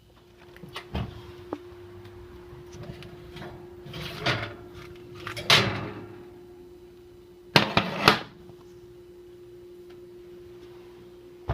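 Several knocks and clatters, like cupboard doors or drawers being opened and shut, the loudest pair about two-thirds of the way through, over a steady faint hum.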